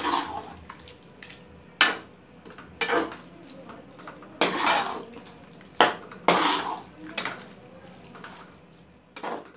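Metal ladle knocking and scraping against a metal cooking pan while stirring spinach, about eight sharp clanks at irregular intervals, some drawn out into short scrapes.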